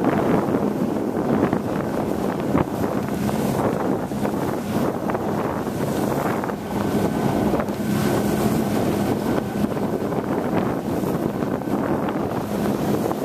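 Small fishing boat's motor running steadily under way, with wind buffeting the microphone.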